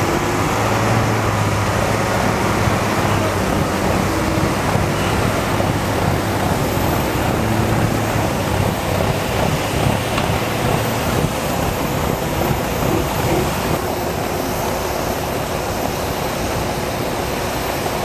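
Military bridge erection boat's diesel engines running as a steady low drone, easing a little in level late on.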